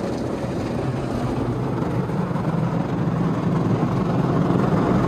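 WashTec SoftCare Evo rollover car wash brushes spinning and scrubbing against the car amid spraying water, heard from inside the car: a steady swishing wash over a low machine hum, slowly getting louder.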